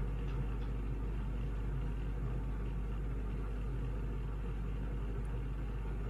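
Steady low background hum and rumble, without distinct events.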